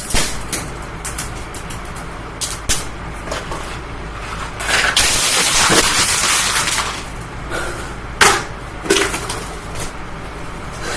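Screws thrown into a running, opened-up Amazon Basics box fan, struck by the spinning blades and sent flying: a series of sharp clicks and clatters, with a dense rattling stretch of about two seconds near the middle, over the fan's low steady hum.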